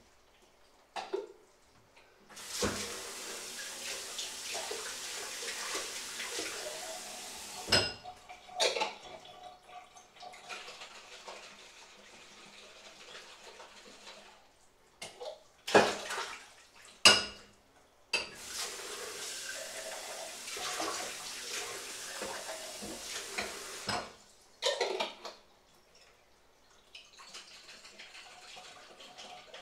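Kitchen tap running into a sink in two spells of about five seconds each, with sharp clanks of dishes being handled in between.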